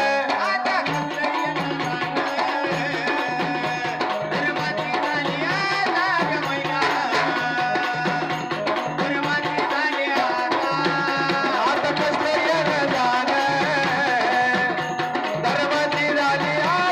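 Live Marathi folk devotional music: a Casio electronic keyboard plays a wavering melody over a steady hand-drum rhythm.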